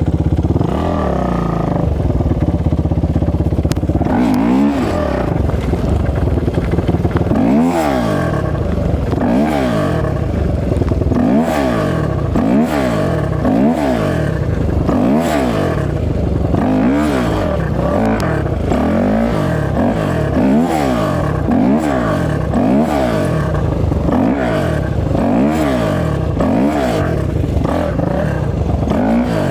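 450cc single-cylinder four-stroke off-road engine running fairly steadily, then from about four seconds in revving up and falling back over and over, roughly every one and a half to two seconds.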